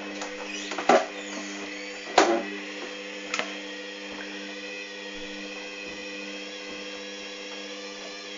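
Hoover Dynamic washing machine in a high-water rinse: a steady motor hum with three loud thuds of the load and water in the turning drum, about a second apart, in the first few seconds.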